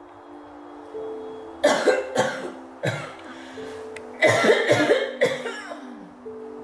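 A person coughing in two harsh fits, about two seconds in and again around four to five seconds in, over soft, sustained background music.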